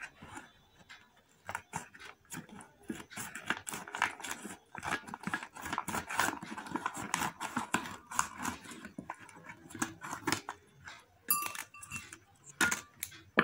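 Foil retort food pouch crinkling and rustling in the hands as it is cut open with scissors and its contents squeezed out into a glass bowl, with scattered small crackles and a sharp knock near the end.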